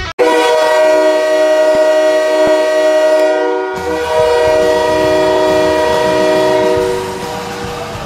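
Ice hockey arena goal horn: a multi-tone air-horn chord sounding one long blast of about seven seconds that starts abruptly. Music comes in underneath about halfway through, and the horn fades out near the end.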